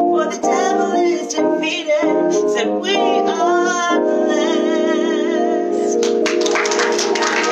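Woman singing a gospel praise song over piano or keyboard accompaniment, ending on a long held note about four seconds in; hand clapping starts near the end.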